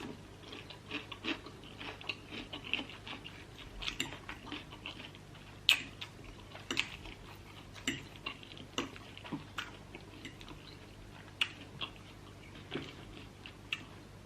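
Close-miked eating: irregular chewing of spicy noodles and chicken, with scattered sharp clicks of cutlery against a dish.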